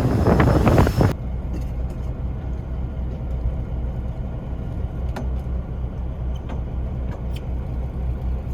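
Wind buffeting the microphone for about a second, then a cut to a vehicle's engine running with a steady low rumble and a few faint clicks.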